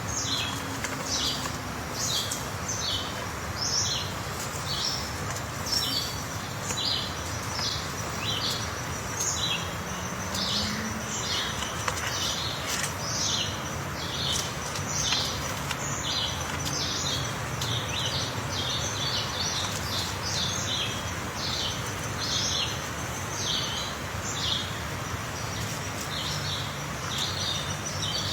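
Birds chirping: many short, high notes a few times a second, irregularly spaced, over a steady background hiss.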